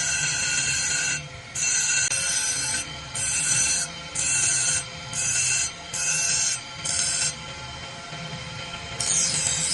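Rasping hand strokes of an abrasive across a steel blade, about one a second. The strokes pause for over a second near the end, then start again. Faint background music plays throughout.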